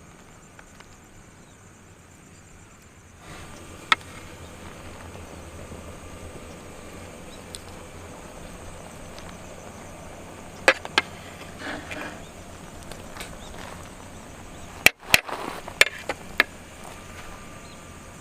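Scattered sharp clicks and knocks over a faint steady background, with a quick cluster of several knocks near the end.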